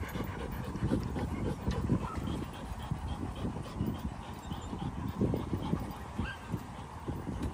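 Dogs whimpering faintly a few times over low, continual rustling and bumping.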